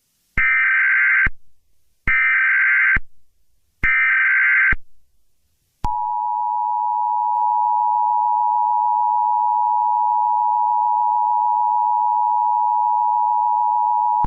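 Emergency Alert System header: three one-second bursts of shrill, buzzing SAME data tones, then the two-tone EAS attention signal sounding steadily for about eight seconds, the signal that opens a broadcast emergency alert.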